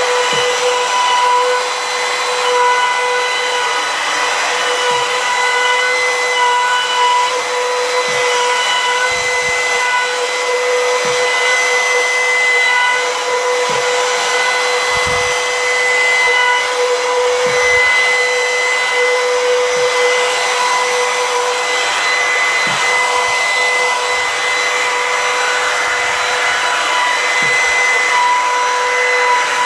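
Compact trim router running at a steady high whine, its bit cutting across the face of a walnut slab as it is pushed along a router sled, with a continuous shaving hiss. Occasional dull low knocks come through as the sled is moved.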